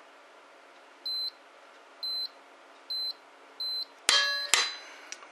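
Powerbuilt digital torque adapter beeping four times, the short high beeps coming a little closer together as the applied torque nears its set value. Near the end, two sharp metallic clicks with ringing, about half a second apart: the click-type torque wrench breaking over.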